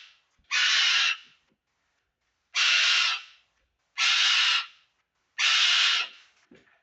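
Pet bird screaming: four loud, harsh screams of about half a second each, roughly a second and a half apart. The bird is screaming non-stop, upset after its owner screamed in pain.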